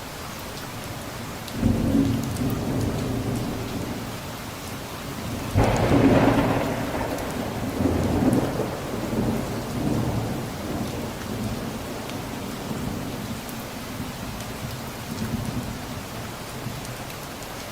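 Steady rain with thunder: a first peal about a second and a half in, then a louder, sharper crack about five and a half seconds in that rolls on in rumbles and slowly dies away.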